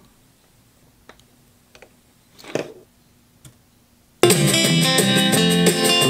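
A few faint clicks and a soft thump. About four seconds in, guitar music starts abruptly, played loud through a JBL GTO629 Premium 6.5-inch car speaker under test.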